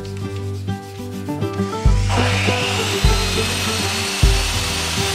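Wood being sanded with a power sander. It starts about two seconds in as a loud, even rasping hiss with a faint whine above it, over background music with a steady bass beat.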